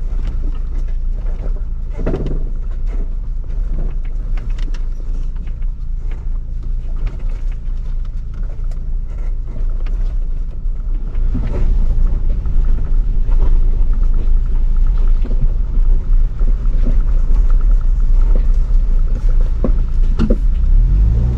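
Ford Bronco driving slowly over a rocky dirt trail: a steady low rumble of engine and tyres, with scattered knocks and rattles from the rough ground. It gets louder about halfway through.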